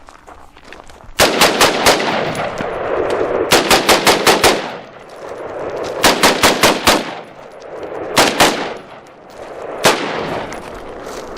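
ATI Alpha Maxx AR-15 carbine in 5.56 NATO fired in quick semi-automatic strings of about five or six shots, roughly five a second. A shorter string and then a single shot follow near the end, and each string leaves a long fading echo.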